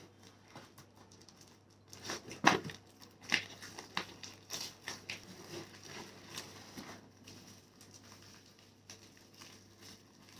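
Parcel packaging being handled and unwrapped by hand: irregular crinkling, rustling and tearing, loudest between about two and four seconds in, then fainter handling.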